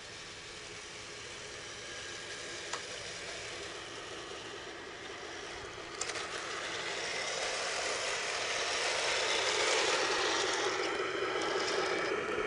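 A 1:16 scale RC M41A3 Bulldog model tank running: its small electric drive gear and tracks whir, with a click about three seconds in, then a step up in level about halfway through that keeps growing louder.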